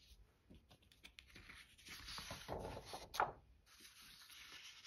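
Sheets of paper rustling and sliding over one another as they are handled, with one sharper rustle a little past three seconds in.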